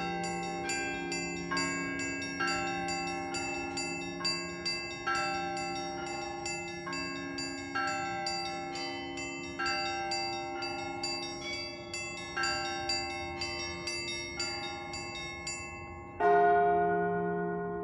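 A set of bells being rung in a quick repeating pattern of strikes at several pitches, about two to three a second. Near the end a large, deep bell is struck once, much louder; the smaller bells stop and the big bell rings on.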